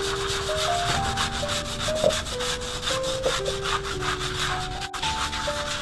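Hand scrub brushes scrubbing a wet, soapy concrete floor in quick back-and-forth strokes, under a simple melody of held notes.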